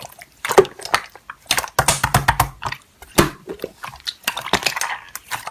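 Slime being played with by hand: an irregular run of sticky clicks and squishes.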